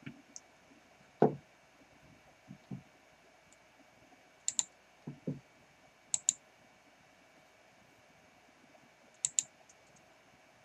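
Computer mouse clicks, coming in quick pairs three times, with a few low thumps in between, the loudest about a second in.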